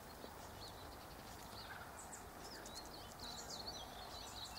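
Faint, high-pitched bird chirps and twitters over quiet outdoor background noise, coming more often in the second half.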